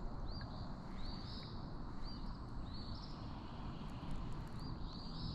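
A bird calling repeatedly, short high arched chirps about once or twice a second, over a low steady rumble of background noise.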